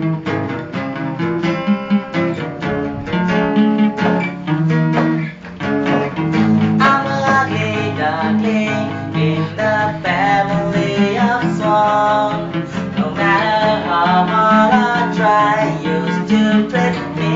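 Acoustic guitar playing a plucked song intro. From about six seconds in, a held, wavering melody line comes in above the guitar.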